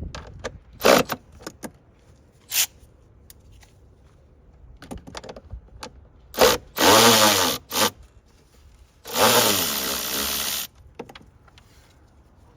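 Cordless power tool with an 8 mm socket whirring in short runs as it backs out the air filter cover bolts: two brief runs past the middle, then a longer one of about a second and a half. Scattered clicks of the socket and tool being handled come before.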